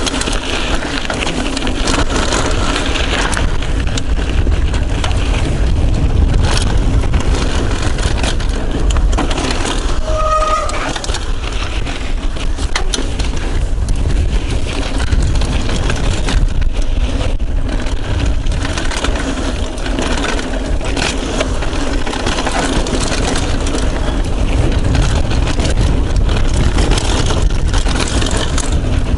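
Yeti SB75 mountain bike riding down a dirt singletrack, recorded on a chest-mounted action camera: heavy wind rush on the microphone over tyre noise on dirt and the steady clatter and rattle of the bike over rough ground. A short squeak about ten seconds in.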